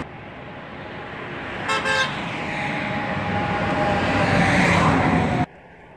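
Motor vehicle on the road approaching and growing steadily louder, with a horn giving two short toots about two seconds in; the sound cuts off abruptly near the end.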